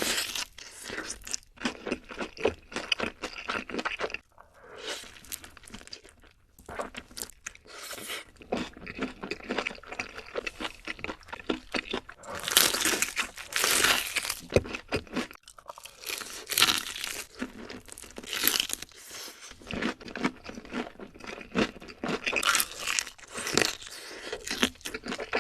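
Close-miked eating: crunchy bites and chewing of fried chicken, coming in bursts of crackling crunches with short pauses between them.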